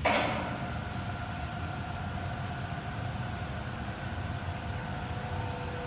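RMT F-FAB three-roll aircraft roll machine running with a steady hum and whine as a large sheet-metal cone blank goes through its rolls, the whine's pitch shifting near the end. A brief noisy rattle at the very start.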